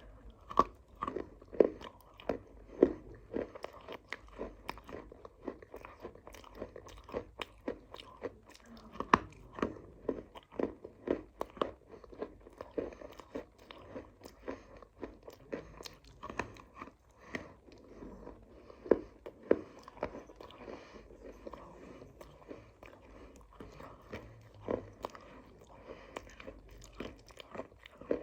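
A person biting and chewing crunchy clay close to the microphone: sharp crunches in quick, irregular succession.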